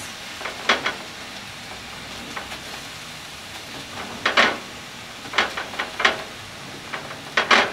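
Ground turkey sizzling as it browns in a cast iron skillet, with a spatula scraping and knocking against the pan every second or two as the meat is broken up.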